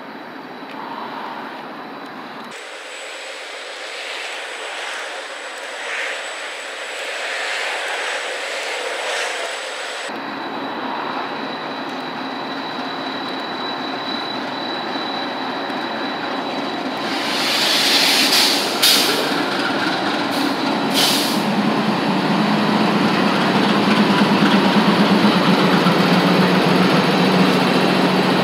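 Diesel freight locomotives approaching and passing underneath, their engine and rail noise growing steadily louder. A few brief bursts of hiss come about two-thirds of the way through. A strong low engine drone takes over in the last few seconds as the lead units pass below.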